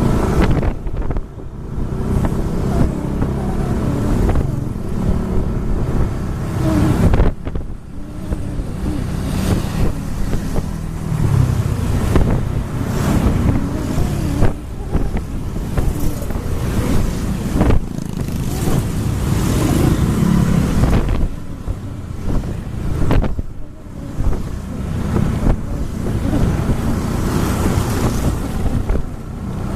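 Road vehicle engines running on the move, with wind buffeting the microphone. The engine pitch rises and falls with speed, and there is a clear rise about a third of the way in.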